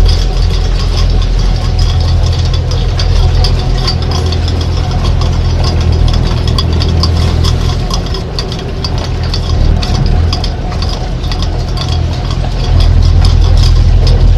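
Squid-fishing boat's engine running steadily, a loud low drone, with irregular rattling and clicking from gear on deck; it grows louder near the end.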